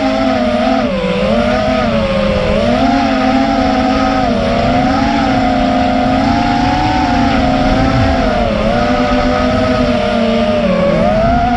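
FPV racing drone's electric motors and propellers whining, the pitch rising and falling as the throttle changes.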